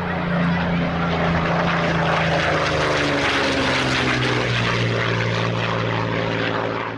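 Propeller-driven light aircraft engine running loudly as it flies past, its note gliding lower in pitch over the first few seconds, then holding steady.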